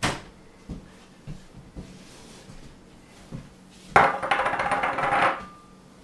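A few light knocks on a wooden tabletop. About four seconds in, a glass bowl is set down with a sharp clunk and scrapes along the wood for just over a second, ending with a brief ring.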